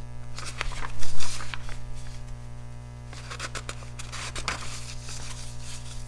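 Sketchbook paper rustling and sliding as a page is turned, loudest about a second in, with softer rustles a few seconds later, over a steady low electrical hum.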